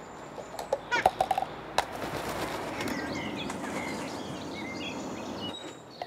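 A few sharp clicks and knocks in the first two seconds, then rustling, as cups are handled. Small birds chirp in the background.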